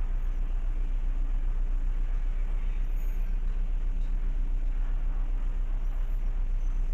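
Ship's diesel engine running with a steady, deep, pulsing rumble.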